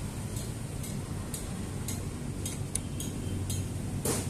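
Small brass hose fittings of a pressure washer clicking and clinking lightly as they are handled, in a string of short ticks with a sharper one about four seconds in, over a steady low rumble.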